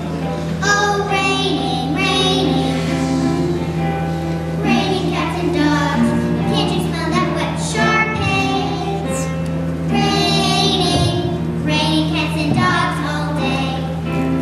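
A group of children singing a song together, with a steady low hum running underneath.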